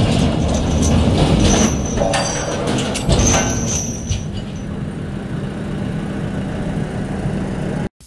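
JCB 3DX backhoe loader's diesel engine running, with high metal squeals as a heavy steel road roller wheel slides off a truck bed and a heavy thump about three seconds in as it drops to the ground. The sound cuts off just before the end.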